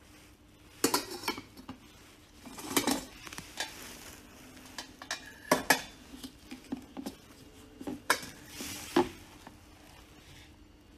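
Metal parts of a mini electric hot pot clanking and rattling as its stainless steel steamer tray and pot are lifted out and set down, a handful of sharp clanks spread through, the loudest about halfway.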